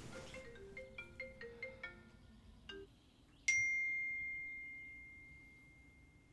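Smartphone marimba ringtone playing quick bright notes that get quieter and stop about three seconds in. Half a second later a single bright chime strikes and slowly fades.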